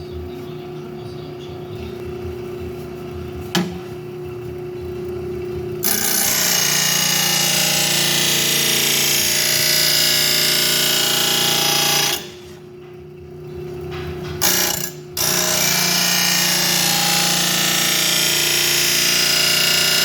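Oregon mower blade sharpener's motor running steadily, then its grinding wheel grinding steel from about six seconds in, with a break of about two seconds around the twelve-second mark before grinding again. Metal is being taken off the heavy end of a commercial mower blade to balance it.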